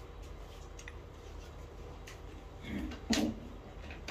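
A person eating rice with the fingers from a metal plate: faint chewing and mouth clicks over a low steady hum, with a short louder knock about three seconds in.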